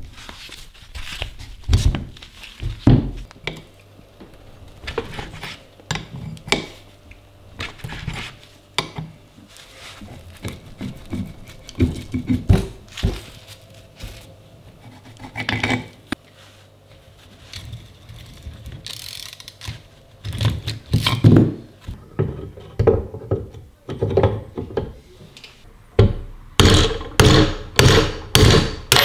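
Metal parts of an antique Metabo hand-cranked grinder, a cast-iron gear housing, geared shaft and grinding wheel, being handled and worked on by hand. Scattered knocks, clinks and rubbing, ending in a run of sharp knocks about two a second.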